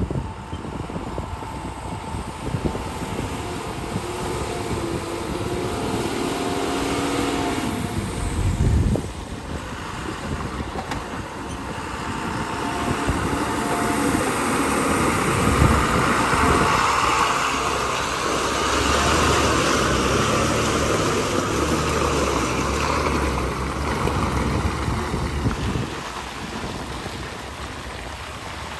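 Heavy diesel Tata tipper trucks labouring through deep mud, their engines running under load and the note swelling as a truck comes close. There is a brief loud low rumble about eight seconds in, and the sound grows louder in the middle before easing off near the end.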